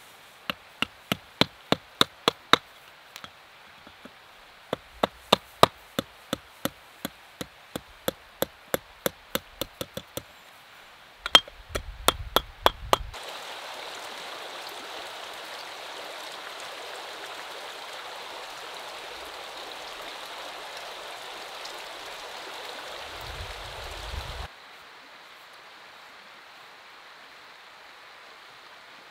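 Hand hammer striking hot mild steel on a small stump-mounted anvil while a belt buckle is forged: sharp blows at about three a second, in three runs with short pauses. After about thirteen seconds a steady rushing noise takes over and stops abruptly near the end.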